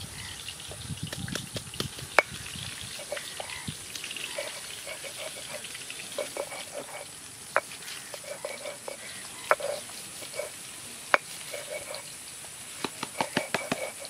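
Outdoor ambience with a steady high hiss and groups of short repeated chirps, broken by a few sharp single knocks. Near the end comes a quick run of knocks as a stone roller is worked over a flat stone grinding slab.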